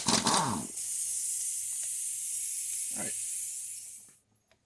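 Pneumatic impact wrench loosening the flywheel bolt on a Kohler Command CH16S engine. A loud burst at the start is followed by a steady high air hiss for about three seconds, which cuts off a little after 4 s.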